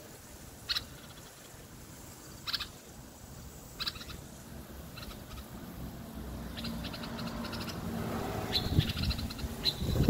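Common bulbul calling in short, bright phrases every second or so, with a quicker cluster of phrases near the end. Underneath, a low droning sound grows steadily louder through the second half.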